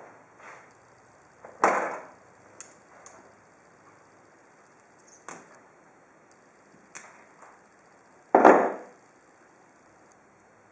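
Two heavy hammer blows crushing an HDMI cable against a hard surface, about a second and a half in and again near the end, with a few lighter knocks between them.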